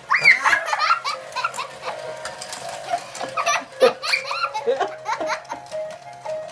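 A toddler laughing with delight in high-pitched giggles that come thick for about the first four seconds, then trail off, over a faint simple tune.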